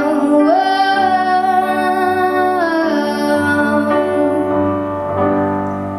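Female voice singing a long held note over sustained piano chords. The note slides up about half a second in and eases down around three seconds in, and the music dies away toward the end.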